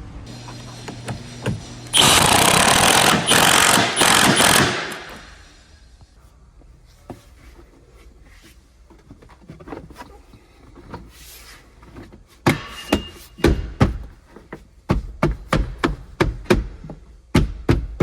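A cordless power tool, such as an impact wrench or ratchet, runs in three short loud bursts of trigger pulls. Later come a quick series of sharp knocks and clicks as metal parts and tools are handled.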